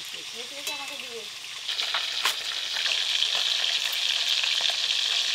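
Pieces of fish sizzling as they fry in hot mustard oil in a wok, the sizzle growing louder about two seconds in. A faint voice is heard in the first second.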